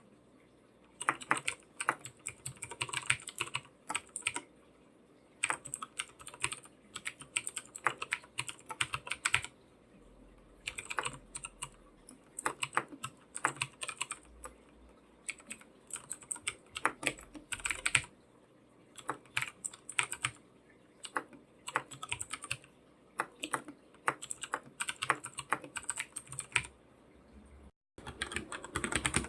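Typing on a computer keyboard: quick runs of keystrokes, each lasting a second or two, with short pauses between them. The sound breaks off for an instant near the end.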